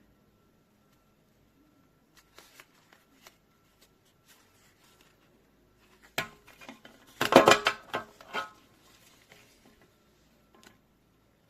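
Hands handling small objects: scattered clicks and rustles, with a louder burst of clattering and rattling from about six to eight and a half seconds in.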